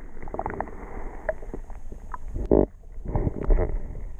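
Water sloshing and gurgling, muffled and dull, heard through an action-camera housing held underwater while hands release an Arctic char in a river. Irregular splashy bursts, the strongest about two and a half seconds in.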